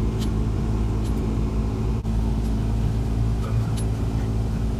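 Hyundai Galloper 4x4's diesel engine running steadily under load as it drives along a rough dirt track, heard from inside the cabin. A few short clicks and rattles come through over the drone.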